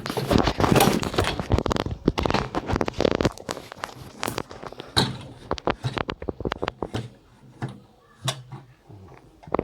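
Handling noise: a dense clatter and rustle of objects being moved and set down for about three seconds, then scattered separate clicks and knocks.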